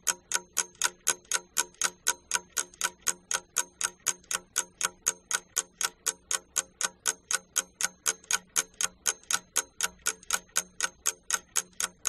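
Ticking clock sound effect, about four even ticks a second over a faint low hum, counting off thinking time for a task.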